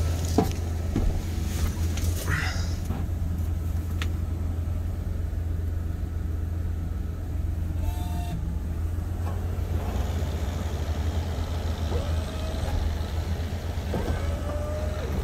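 Ford plow truck's engine idling steadily with a low, even hum, broken by a few short clicks and brief squeaks from the cab.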